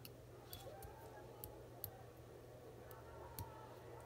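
Faint scattered clicks and ticks, about half a dozen, from fingers working at a pen to take a small bow off it, over a low steady hum.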